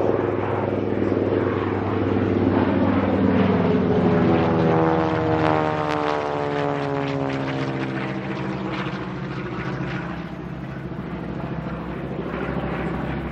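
A Grumman TBM-3E Avenger's Wright R-2600 radial engine and propeller, with a second single-engine warbird alongside, running in a formation flyby. The engine note is loudest about four seconds in, then drops in pitch as the planes pass and fades.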